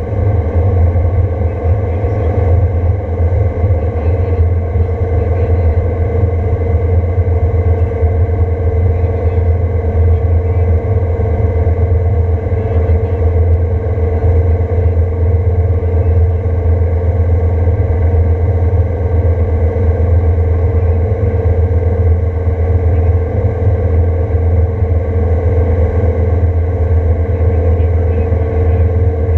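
Motorboat underway, its engine running at a steady speed with a loud, constant low rumble.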